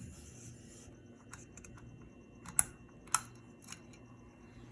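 A faint steady low hum with a few light clicks, two sharper ones about half a second apart a little past halfway.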